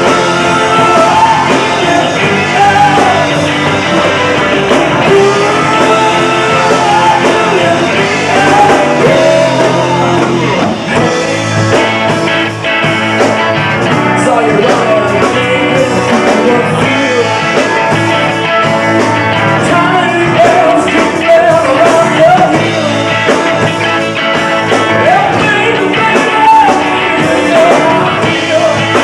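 Live rock band playing: a male lead vocal sung over electric guitar, bass guitar and drums.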